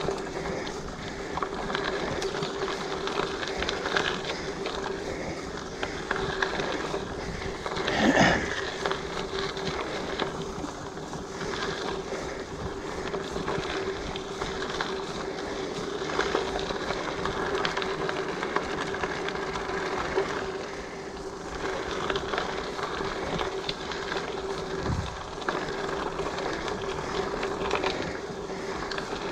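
Giant Fathom mountain bike rolling along a dirt and gravel trail: steady tyre and frame rattle noise, with a sharp jolt about eight seconds in and a lower thump near the end as the wheels hit bumps.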